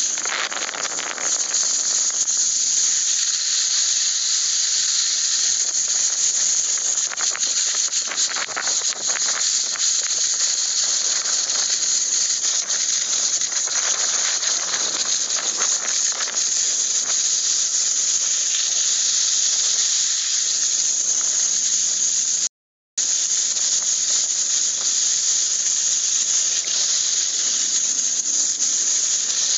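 Steady high hiss of skiing downhill: skis sliding over snow with air rushing past. It grows rougher and scratchier between about seven and ten seconds in, and cuts out for an instant about twenty-three seconds in.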